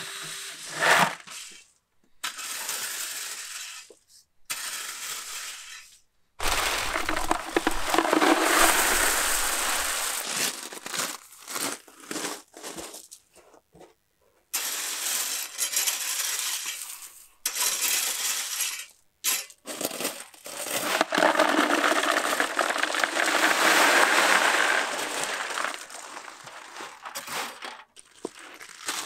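Stiff broom scrubbing and scraping across a wet concrete slab in several long bursts that stop abruptly, with a few sharp clinks.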